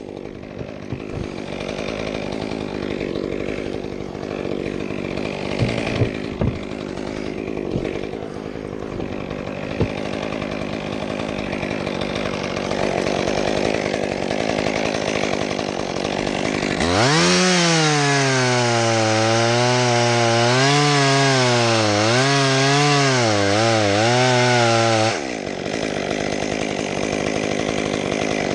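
Chainsaw cutting wood. A steady, more distant saw runs at first; about 17 seconds in, a saw close by throttles up sharply and runs at high revs for about eight seconds, its pitch wavering up and down as it works through the cut, then drops off suddenly.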